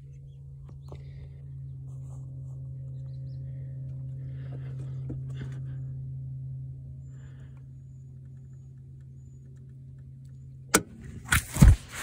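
A steady low mechanical hum, a little louder in the middle, with a few faint metal clinks from a socket wrench and bit on a stuck hex plug. Near the end come three or four sharp, loud knocks close together.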